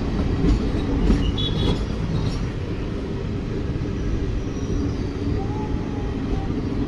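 Passenger train coach rolling along a station platform as it pulls in to its destination: a steady low rumble of wheels on rail, with a few faint short high-pitched notes about a second and a half in.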